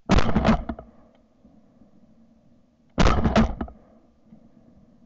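Two shotgun shots about three seconds apart, fired at flushing ducks; each is a sharp blast with a short trailing echo.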